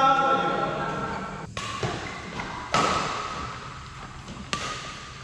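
Badminton rally: a racket strikes the shuttlecock three times, each a sharp smack that rings out through the hall, with a voice sounding at the start.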